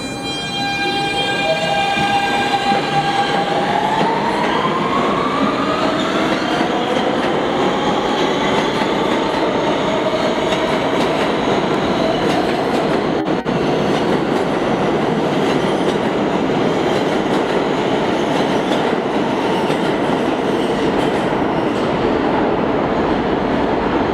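New York City subway train pulling out and accelerating. Its traction motors give a steady multi-tone hum that rises into a climbing whine within the first several seconds, then gives way to a steady loud rumble and clatter of wheels on rail that carries on to the end.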